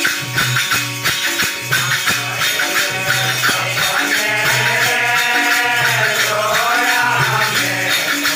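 Devotional bhajan music: a harmonium holding steady notes, a tabla pair keeping a beat of about two low strokes a second, and several pairs of small brass hand cymbals (manjira) clashing in rhythm throughout. A voice sings along from about four seconds in.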